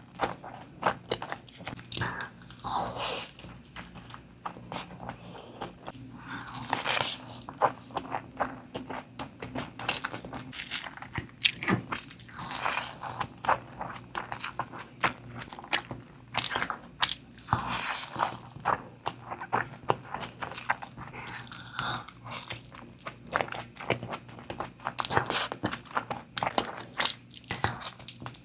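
Close-miked chewing and wet mouth noises of someone eating mutton curry with rice: irregular smacking, biting and slurping sounds, one after another, with no pause.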